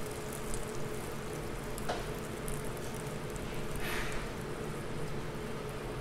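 Batter-coated hot dogs (corn dogs) frying in a pan of hot oil, sizzling steadily, with a short louder flare of sizzle about four seconds in.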